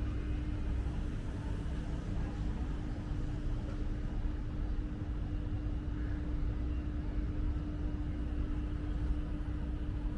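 Wind buffeting the microphone as a steady low rumble, with a constant low hum under it.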